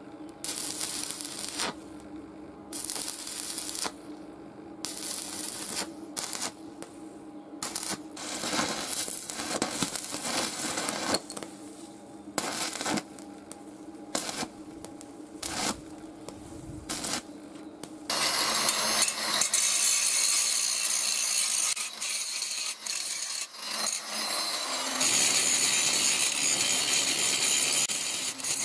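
A power tool working metal: short, irregular bursts of grinding over a steady motor hum, then about two thirds of the way in the tool bites in for continuous, louder grinding.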